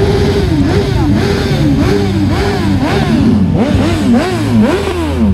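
Several motorcycles riding past one after another, their engines revved up and down again and again, about two revs a second, over the steady run of the other bikes.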